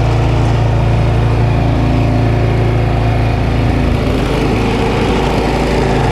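Snowblower engine running steadily; its note changes about four seconds in.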